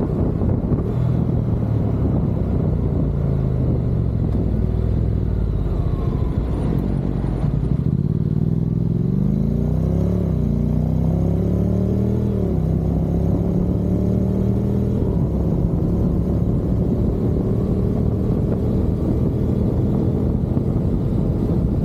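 Motorcycle engine running under heavy wind buffeting on the microphone; its pitch climbs about eight seconds in, then drops back twice as it shifts up.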